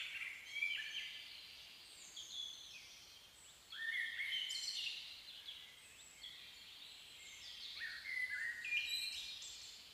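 Small songbirds singing: quick, high chirping phrases in three bursts, at the start, about four seconds in, and near the end, over a faint steady outdoor hush.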